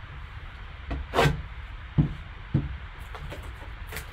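Cardboard box being handled on a table: a swish as it slides about a second in, two short knocks as it is set down or bumped, then light scraping as it is lifted and turned over, over a steady low hum.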